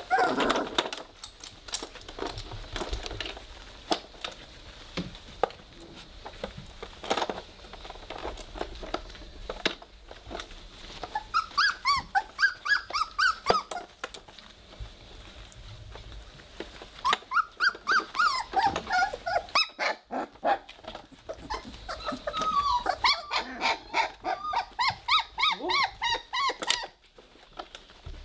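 Three-week-old Weimaraner puppies play-fighting, giving high, squeaky puppy growls and whimpers in quick pulsing bouts, the first about twelve seconds in. Scattered soft clicks from their scuffling come in between.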